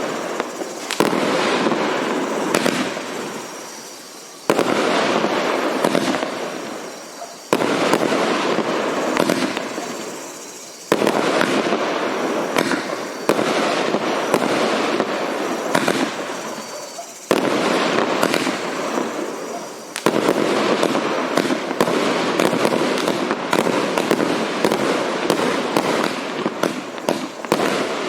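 Multi-shot consumer fireworks cake of 1.2-inch calibre firing a dense barrage of rapid pops and bangs. It comes in surges that start abruptly and die away every few seconds, then runs as one continuous barrage over the last several seconds.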